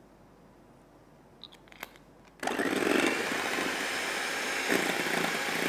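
Electric hand mixer switched on about halfway through, its beaters running steadily in whipped cream in a glass bowl. A couple of faint clicks come before it starts.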